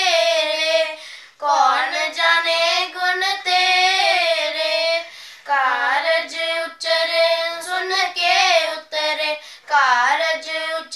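Two children singing a Sikh Gurbani shabad together without instruments, in long sliding phrases broken by short pauses about a second in and again about five seconds in.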